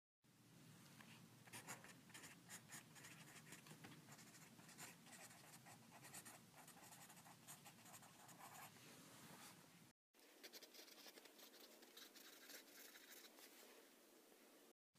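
Pen writing on paper: faint, quick scratching strokes of handwriting, several a second. The sound drops out briefly twice.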